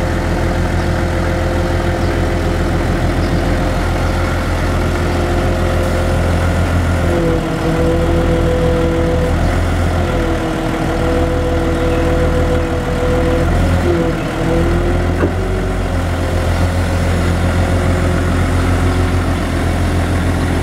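A 1984 Toyota FD-45 forklift's diesel engine running steadily. Its pitch dips briefly three times.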